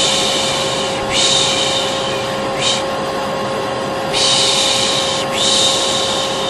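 Vacuum cleaner running steadily with a constant hum, overlaid by a person's repeated "shh" shushing, the Turkish "pış pış" used to soothe a baby. There are about five shushes, most lasting about a second and one short one a little before the middle.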